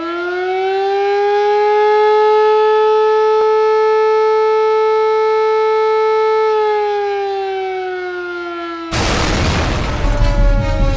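Air-raid siren sound effect at full wind-up, holding one steady tone and then winding down in pitch. About nine seconds in, a sudden loud boom cuts in and music starts.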